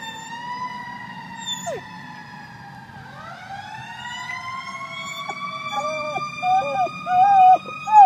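Fire truck siren wailing in long, slow rising and falling sweeps. From about six seconds in, a standard poodle joins in with short, wavering howls that grow louder.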